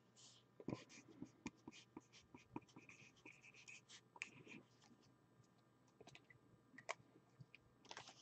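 Faint scratching strokes and small clicks of a fine-point marker writing by hand, in irregular short bursts.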